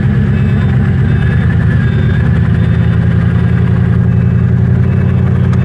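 Off-road vehicle engine running loud and steady at fairly constant revs.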